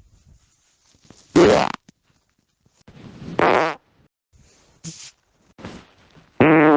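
A run of farts. Loud ones come about one and a half and three and a half seconds in, shorter, fainter ones around five and six seconds, and a loud buzzing one near the end.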